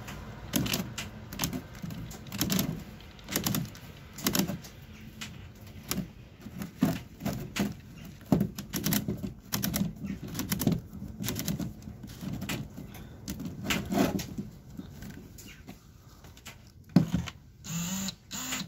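Irregular clicks and knocks from a cordless drill being handled and turned over, about one or two a second with no motor running. A sharper knock near the end is the loudest.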